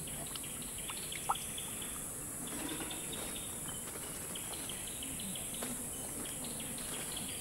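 Forest ambience: a steady high insect buzz with short, scattered bird chirps.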